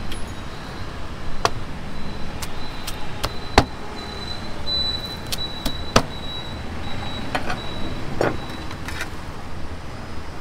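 A large knife slicing fried chicken rolls on a plastic cutting board, about ten sharp knocks of the blade striking the board at uneven intervals, over steady street traffic noise.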